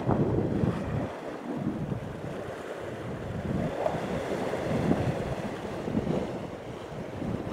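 Gusty wind buffeting the microphone over sea waves washing against the rocks.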